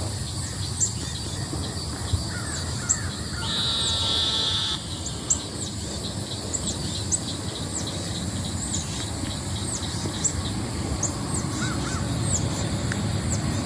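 One harsh, cawing bird call lasting about a second, around three and a half seconds in, over thin high chirps that repeat about once a second.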